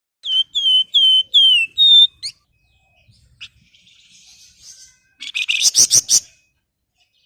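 Javan fulvetta (flamboyan, wergan Jawa) song: five clear whistles in quick succession, the last a little higher, then after a pause a short harsh rapid chattering rattle about five seconds in.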